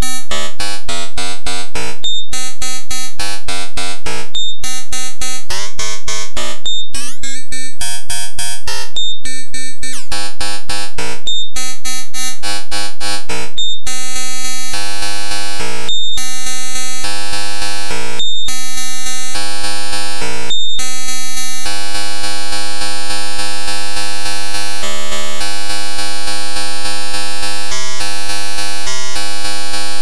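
VCV Rack software modular synthesizer playing a sequenced pattern of fast repeating electronic notes through a macro oscillator, with its notes and wave shape changed live by hand on hardware MIDI knobs. The pattern breaks off briefly about every two seconds, sweeps in pitch about a third of the way in, and turns into denser, held tones in the last third.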